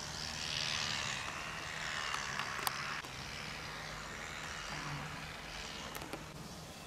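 Outdoor background noise: an even hiss that swells over the first few seconds and then settles, over a faint low hum, with a few small clicks about two and a half seconds in and again near the end.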